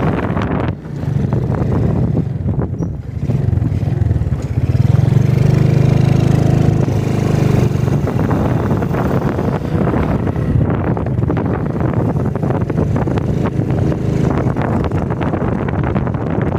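Small motorcycle engine running while riding along, under a steady rushing noise. The engine note rises about four seconds in, holds for a few seconds, then settles back.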